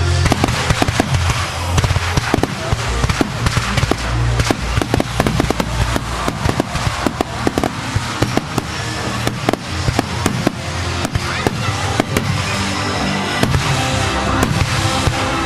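Fireworks display: a rapid, dense run of bangs and crackling from many shells bursting, with music playing underneath.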